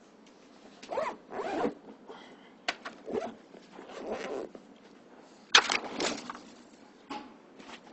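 Classroom handling noise: an irregular string of short scratchy, rasping strokes from students working with pencils, paper forms and bags, the loudest about two-thirds of the way through.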